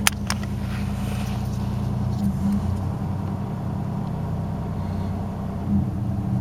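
A 1991 Buick LeSabre's 3.8-litre V6 idling steadily on a cold start after sitting overnight, with two sharp clicks right at the beginning.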